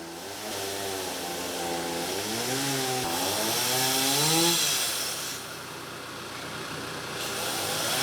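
Chainsaw cutting into a tree trunk. The motor's pitch wavers up and down as the chain loads in the wood, and the cutting hiss is loudest about four seconds in, then eases a second later.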